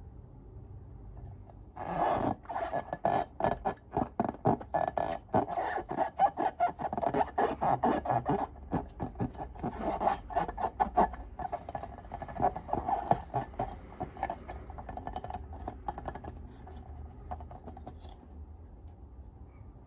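Slime being squeezed and kneaded by hand, giving a dense, irregular run of small sticky pops and crackles. It starts about two seconds in and fades to fainter handling after about sixteen seconds.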